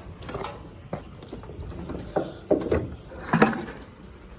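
A series of irregular knocks and clacks, about six, the loudest about three and a half seconds in: a small transfer pump and its hose fittings being handled and taken off after flushing.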